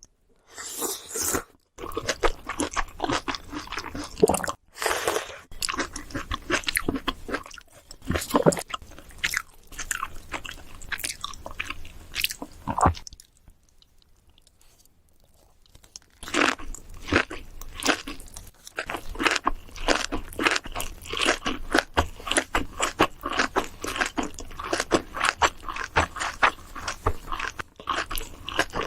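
A person chewing and crunching food close to the microphone in fast, crisp crackles, pausing for a few seconds about halfway through before chewing again.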